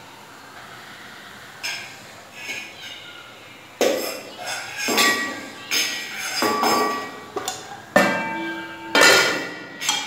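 A steel kadai and its steel lid being handled on a gas stove: a series of sharp metallic clinks and clanks, each ringing briefly, with the lid set on the pan near the end.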